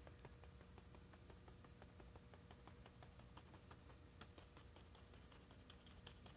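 Faint, quick taps of a paintbrush stippling acrylic paint onto a canvas, several taps a second.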